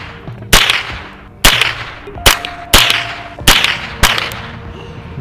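A scoped rifle fired six times in quick, uneven succession, each shot a sharp crack with a fading echo.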